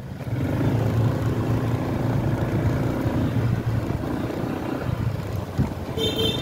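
Honda ADV scooter's single-cylinder engine pulling away and running at low speed over a rough dirt road, with wind noise on the microphone. A brief high-pitched tone sounds near the end.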